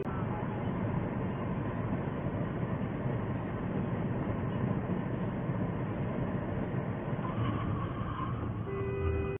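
Steady road noise inside a moving car's cabin: a low, even rumble with hiss from the tyres and the car running at speed, picked up by the dashcam microphone.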